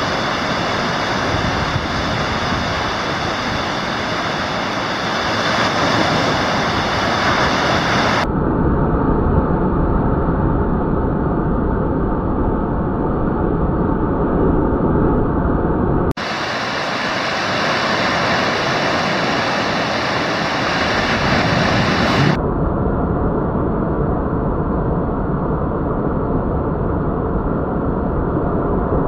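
Ocean surf breaking and washing up a sandy beach: a steady, loud rush of waves, with a brief dropout about sixteen seconds in.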